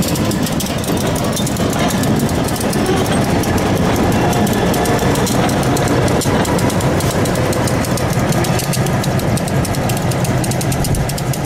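A freight train passing close by: two end-cab diesel switcher locomotives running as they move a cut of covered hoppers. The engines' low steady drone sits under a constant clatter and clicking of steel wheels on the rails.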